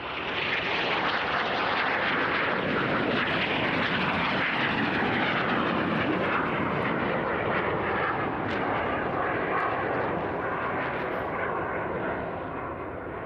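Aermacchi MB-339 jet trainers flying low past the stand. The jet noise swells sharply at the start, holds loud with the pitch sliding down as they pass, and fades near the end.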